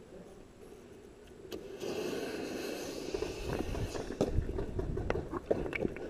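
Footsteps and knocks of a player moving about with gear, several sharp thumps in the second half. About two seconds in, a rushing hiss sets in and lasts about two seconds.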